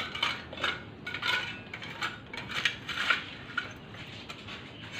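Metal hand tool scraping and clinking against broken ceramic tiles and concrete rubble as it clears them out of a tomb niche, in irregular strokes that thin out near the end.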